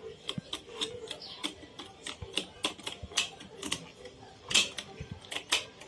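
Short, irregular scratchy clicks, about two or three a second, from sandpaper being rubbed in brief strokes on the contact face of a vacuum cleaner's on/off switch to clean the contacts.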